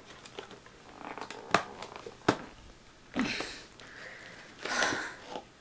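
Hard clear-plastic clamshell packaging being forced open by hand: two sharp snaps of the plastic about a second and a half and two seconds in, then two longer rough rustles.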